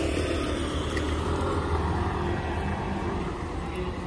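A vehicle engine running close by, a steady low rumble over street noise, easing off about three seconds in.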